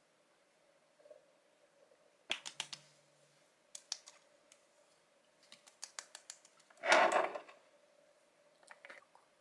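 Fingers and palms patting and pressing skincare product into the face, with runs of light quick taps and one louder rubbing rustle about seven seconds in, over a faint steady hum.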